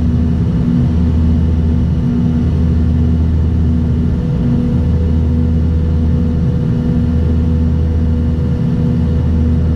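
Cabin drone of a Bombardier Dash 8-Q200's Pratt & Whitney Canada PW123 turboprops and propellers on approach with the landing gear down: a steady low hum whose lowest notes slowly swell and fade.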